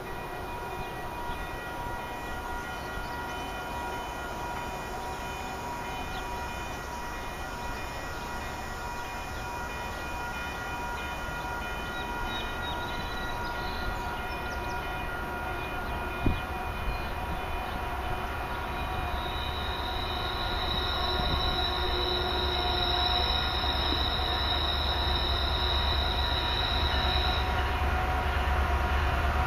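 Approaching freight train: a low rumble builds and grows louder in the second half, over several steady high-pitched tones. There is a single sharp knock about halfway through.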